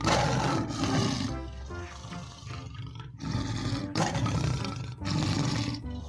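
Big cat roaring several times, over background music.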